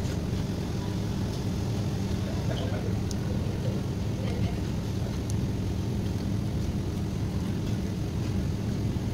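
Steady low mechanical hum of commercial kitchen machinery, with a few faint light clicks as cream cheese is spooned into a bowl.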